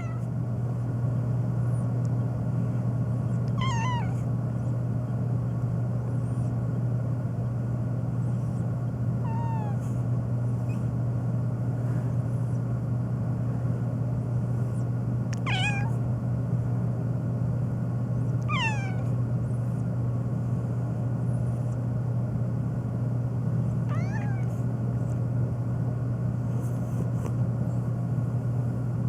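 Domestic cat meowing, about six separate falling meows spaced several seconds apart with a few fainter ones between, over a steady low hum.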